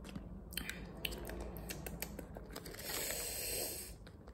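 Close-up eating mouth sounds: wet clicks and chewing, with a short crinkly rustle of the plastic pickle pouch about three seconds in.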